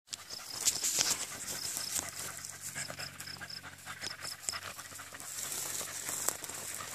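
Beagles panting and snuffling as they work along a trail, with rustling and light ticks through the grass. Short high-pitched beeps come in little runs of three or four.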